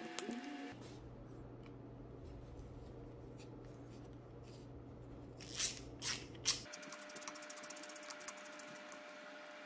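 Gloved hands handling and fitting the plastic cover of a bicycle handlebar gear shifter: faint rubbing over a low hum, then three louder rustling clicks about five and a half to six and a half seconds in.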